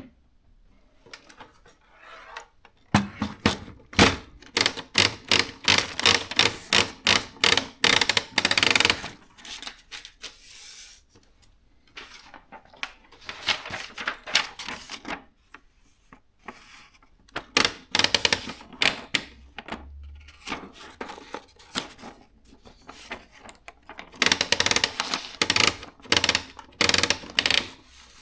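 Canon S-60 thermal electronic typewriter being typed on: its keys click in fast runs of several seconds, broken by short pauses.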